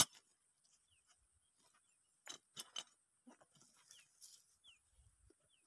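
Faint handling sounds of gear being packed into a bag by hand: a few short clicks and rustles, a cluster of them a little over two seconds in.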